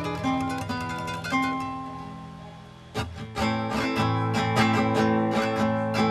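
Instrumental song intro led by guitar: plucked notes ring out and die away, then about three seconds in a fuller strummed guitar accompaniment comes in.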